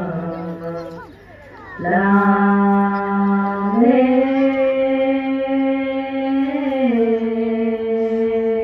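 Cham dance ritual music: a single melodic line of long, steady held notes, with a short break about a second in. It steps up in pitch about four seconds in and settles back down near seven.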